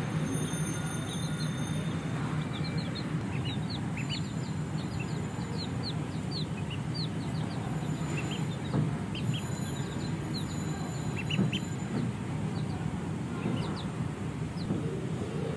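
Baby chicks and ducklings peeping: many short, high-pitched cheeps overlapping all through, over a steady low hum.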